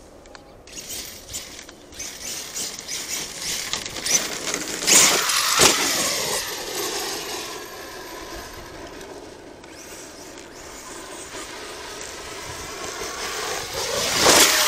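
Arrma Kraton 8S RC monster truck's brushless electric motor and drivetrain whining, the pitch falling and rising as the truck slows and speeds up. A loud rush of noise comes about five seconds in and again near the end.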